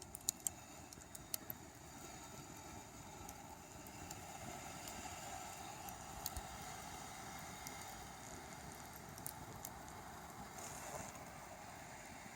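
Smouldering campfire crackling, with scattered sharp pops over a steady low hiss.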